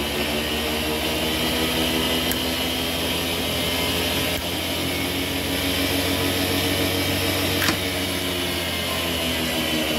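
1970 Club Car golf cart's 36-volt DC drive motor running unloaded on the bench, fed through its bank of solenoids: a steady hum with a whine above it. Two sharp clicks from the solenoids, about two seconds in and near eight seconds.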